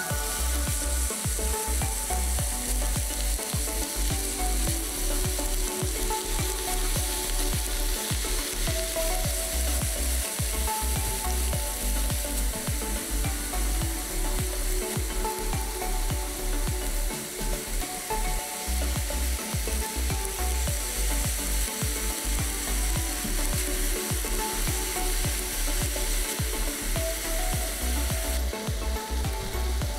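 Ground-beef kofta kebabs sizzling on a hot ridged grill plate: a steady, dense crackle of fat and meat juices frying.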